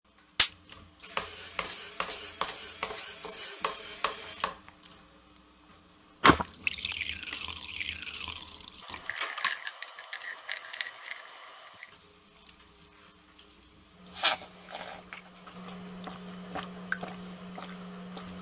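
Homemade chain-reaction breakfast machine at work: a string of clicks with hoop cereal rattling out of a dispenser, a sharp knock about six seconds in, then liquid pouring into a glass. After a quiet stretch, another knock and a steady low motor hum near the end.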